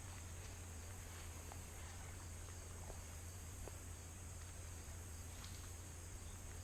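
Steady high-pitched buzz of insects over a low steady hum, with a few faint clicks.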